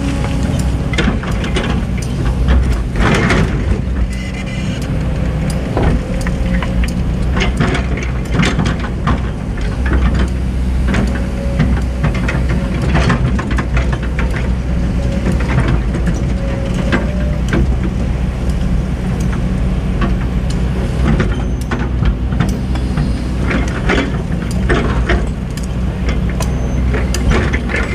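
Heavy hydraulic excavator's diesel engine running steadily under load, with frequent sharp metallic knocks and clanks.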